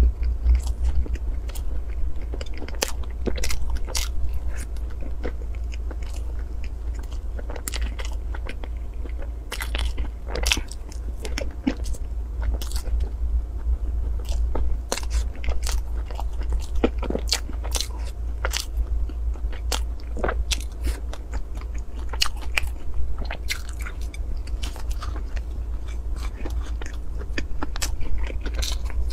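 Close-miked biting and chewing of cream-filled pastry puffs: many small, sharp mouth clicks and smacks, irregular throughout, over a steady low hum.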